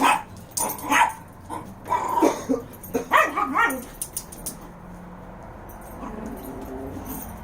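A dog barking in a run of short barks for about the first four seconds, then falling quiet.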